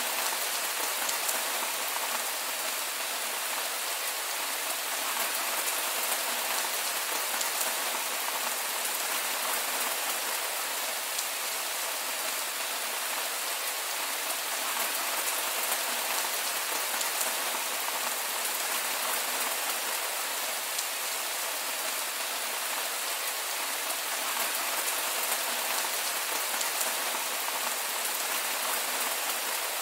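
Heavy rain falling steadily, a dense even hiss with scattered patter of drops.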